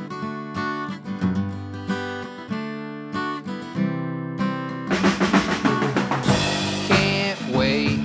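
Acoustic guitar strumming a song intro alone, then a full band comes in about five seconds in with drum kit and bass guitar.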